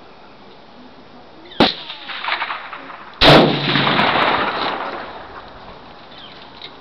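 Two rifle shots about a second and a half apart, each followed by a long echo rolling away; the second shot is louder.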